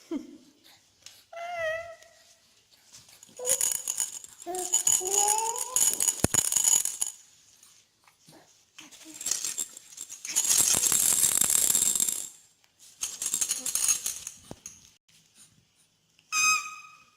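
A baby making high, wavering squeals and rising coos, between several bursts of rattly shaking noise.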